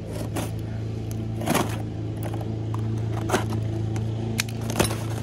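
A utility knife slitting the tape on a cardboard box, with short scrapes and clicks as the box and metal parts are handled. Behind it the steady drone of a landscaper's small engine runs throughout.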